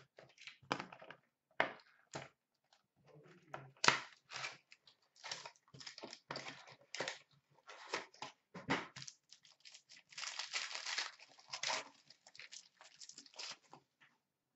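A hockey card hobby box torn open and its foil pack ripped open, heard as many short sharp rips and crinkles, with a longer stretch of crinkling tearing about ten seconds in.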